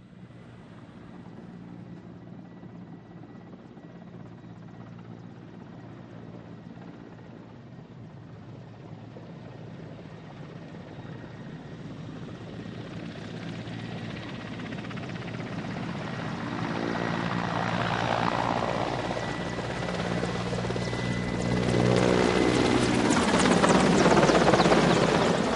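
Mil Mi-8 helicopter's twin turboshaft engines and main rotor running, with a steady high turbine whine over the rotor beat. It grows steadily louder through the second half, swelling twice before easing off slightly at the very end.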